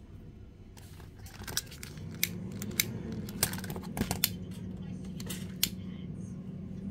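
Scattered sharp clicks and light rustling from hands handling satin fabric petals and striking a small lighter to singe a petal's edge, over a steady low hum that comes in about two seconds in.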